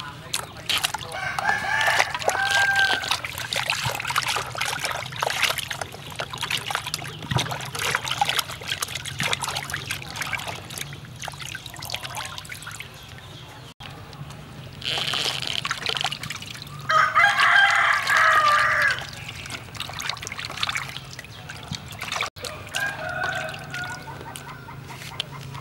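A rooster crowing three times, the longest and loudest crow about two-thirds of the way through. Beneath it, water splashes and trickles as pieces of fish are rinsed in a plastic basin.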